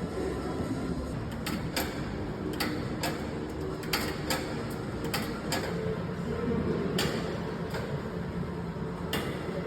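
A dozen or so sharp clicks and knocks at irregular intervals, over a steady low background hum.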